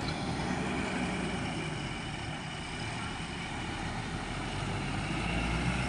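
Heavy diesel engine running steadily, its low rumble growing a little louder near the end.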